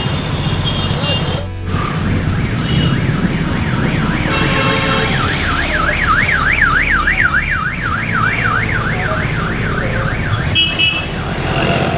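Street traffic with several short horn honks, and from about four seconds in an electronic siren warbling up and down about twice a second for some six seconds.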